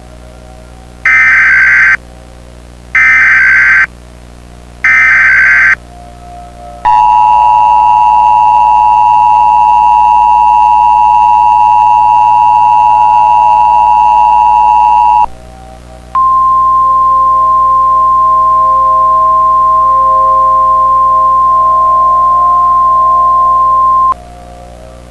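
Emergency Alert System activation tones. Three short, screeching bursts of SAME header data come first, then the two-tone EAS attention signal holds steady for about eight seconds. After a brief gap, a single steady NOAA Weather Radio warning tone sounds for about eight seconds.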